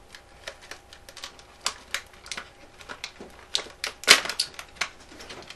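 Packaging being handled and unwrapped: an irregular run of crinkling and small sharp clicks, with the loudest crackle about four seconds in.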